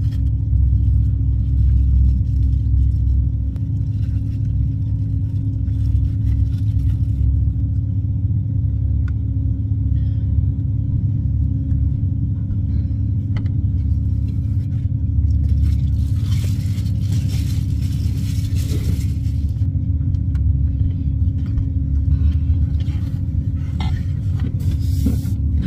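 Steady low engine rumble with a constant hum, heard inside a parked van. About two-thirds of the way through comes a few seconds of rustling as the van's Reflectix window covers are handled.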